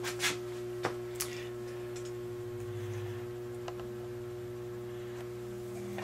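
Steady mains electrical hum from an energized electric furnace heat strip, its coil elements drawing current with no blower running. A few light ticks sound within the first second or so, and one more a little past halfway.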